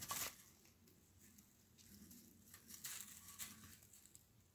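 Faint rustling of straw bedding, with a brief louder rustle at the start and a few soft scratchy rustles about three seconds in.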